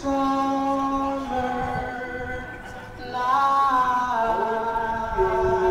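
Music with a voice singing long held notes, moving to a new pitch about once a second.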